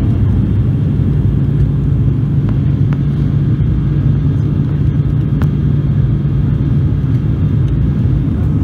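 Cabin noise of an ATR 42-600 twin-turboprop airliner in flight on approach: a steady, loud low drone of the engines and propellers.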